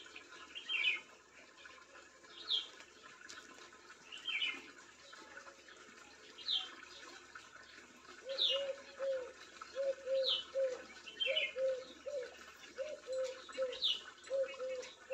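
Birds calling: a short, high, falling chirp repeats about every two seconds, alternating with a lower, rapid chirp. From about eight seconds in, a lower-pitched call joins in, made of short repeated notes in twos and threes.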